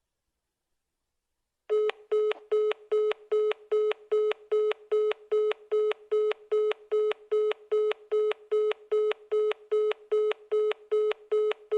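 iPhone call tone: a rapid run of short, identical beeps at one steady pitch, about three a second, starting about two seconds in after silence.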